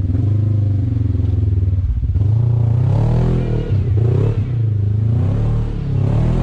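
Side-by-side UTV engine pulling under load while crawling up a rock, its revs swinging up and down several times from about two seconds in, then steadying.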